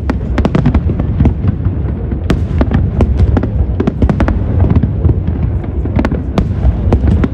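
Fireworks display going off: many sharp bangs and crackles in quick succession over a steady low rumble.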